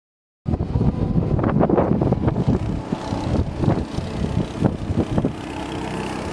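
Go-kart engines running as karts lap the track, with wind buffeting the microphone. The sound begins about half a second in.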